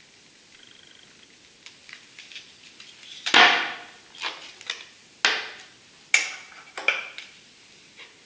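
Thin clear plastic sheet crackling and popping as it is flexed and pressed by hand around a cylindrical mold, in about half a dozen sharp bursts, the loudest about three seconds in.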